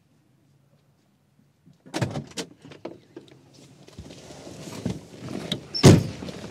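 A 1968 Volkswagen Beetle's door unlatching and opening with a few sharp clicks about two seconds in, followed by rustling and shuffling as someone climbs in, with one heavy thump near the end as they drop onto the seat.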